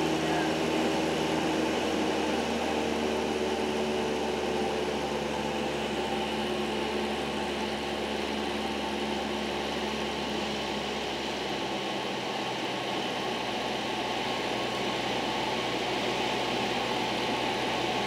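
Cabin noise of a light high-wing single-engine airplane with the engine throttled back to idle for a power-off stall, under a steady rush of air. The engine's pitched hum fades a few seconds in, and its low drone drops away a little past halfway.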